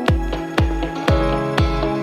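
Background music with a steady beat, about two beats a second, over sustained synth-like chords.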